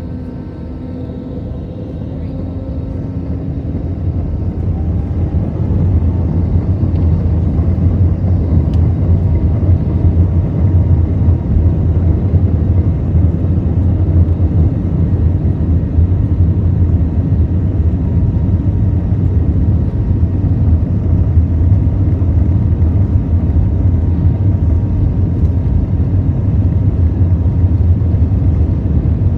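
Airbus A320-200 jet engines spooling up to takeoff power, heard from inside the cabin over the wing: a rising whine and swelling rumble over the first few seconds. Then a steady, loud, deep rumble through the takeoff roll.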